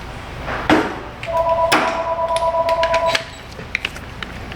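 Power ratchet running for about two seconds with a steady whir, working a nut on a corroded battery cable terminal, with tool knocks and clicks before and after.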